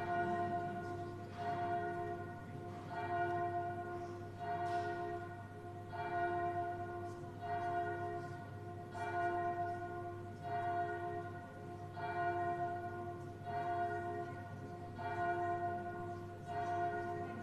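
Church bell ringing, struck about every one and a half seconds, each stroke ringing on into the next.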